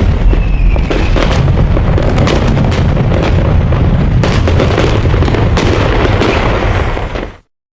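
A loud, harsh, crackling explosion-like rumble with a heavy low end, a distorted sound effect, which cuts off suddenly near the end.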